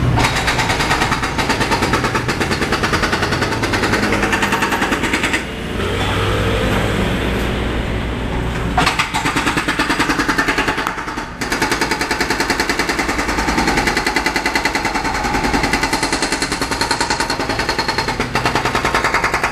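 Road-works machinery hammering rapidly and without let-up, a fast steady pounding that eases only briefly about five seconds in and again near eleven seconds.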